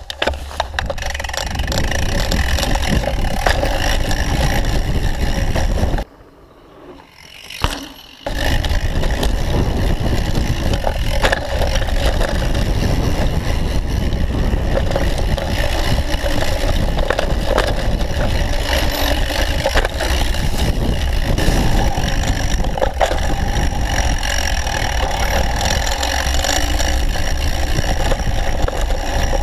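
Onboard sound of a Votec downhill mountain bike running down a dirt trail: heavy wind buffeting on the GoPro microphone over tyre scrape and bike rattle. About six seconds in the noise drops away for roughly two seconds, then returns at full loudness.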